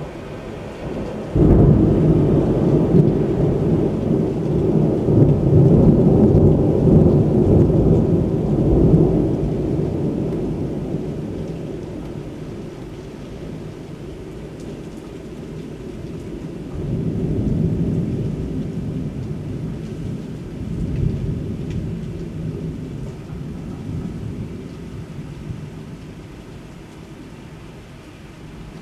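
Thunder cracks suddenly about a second and a half in, then rolls on loudly for several seconds and slowly fades, with two more swells of rumbling later on. Steady rain runs underneath.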